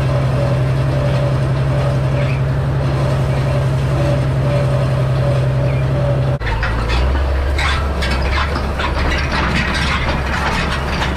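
Farmall 806 tractor's six-cylinder diesel engine running steadily while it pulls a New Idea side delivery bar rake. About six seconds in the engine sound drops lower and the rake's metal frame and tines rattle and clatter over it.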